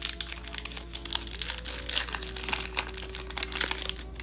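Foil wrapper of an SP hockey card pack crinkling and crackling as it is torn open by hand, with many quick, irregular crackles.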